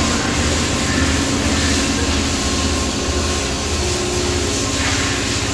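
A steady, unbroken mechanical drone with a low hum under a broad hiss.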